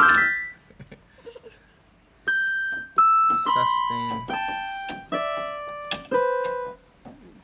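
MK-2089 budget electronic keyboard played on a piano voice: a quick upward run of notes right at the start, then, after a short pause, about eight single notes played one at a time, each struck and fading as the next one starts.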